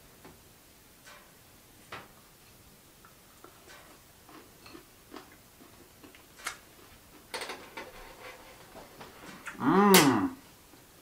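Light clicks and taps of forks on plates while the food is tasted, then near the end a short, loud hummed 'mmm' from one of the eaters, rising and falling in pitch.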